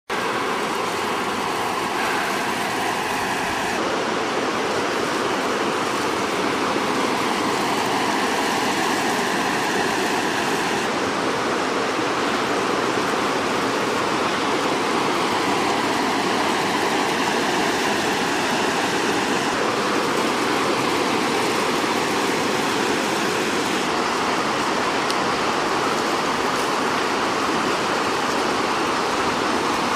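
Water rushing steadily over a weir.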